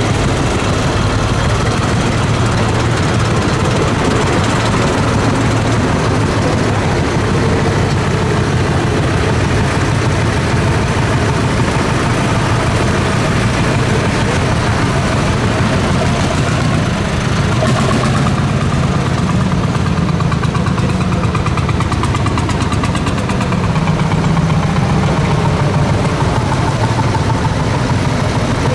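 Vintage tractor engines running steadily, with a dense low-pitched rumble that holds without a break.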